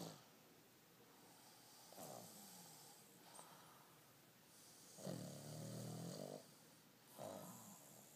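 Pug snoring in its sleep: a short snore about two seconds in, a longer, louder one around five seconds in, and another short one near the end.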